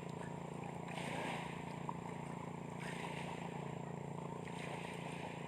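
A motor running steadily with a low hum, under a hiss that swells and fades about every two seconds.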